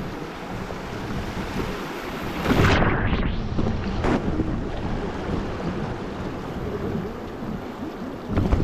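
River water rushing and splashing around a raft, with wind buffeting the microphone. A louder splash comes about two and a half seconds in, and the sound turns briefly muffled for about a second. Another splash comes near the end.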